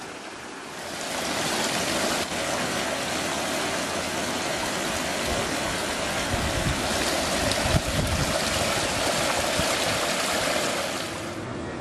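Water running steadily in a small channel, a continuous rushing and gurgling. It swells up about a second in and falls away shortly before the end.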